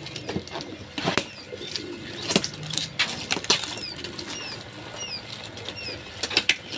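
A cardboard box being handled and worked open, with sharp scrapes and knocks. Young quail chicks inside peep: a run of short, high, falling chirps about halfway through.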